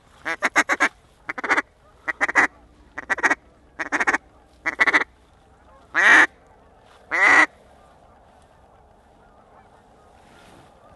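Goose call blown close by: quick runs of short clucking notes, then two longer drawn-out notes that fall in pitch, about six and seven seconds in. The calls stop soon after and only faint background is left.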